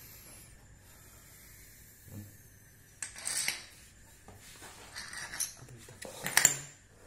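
Small metal engine parts clinking and rattling as a hand rummages through a plastic parts tub, in a few short bursts, the loudest a little before the end.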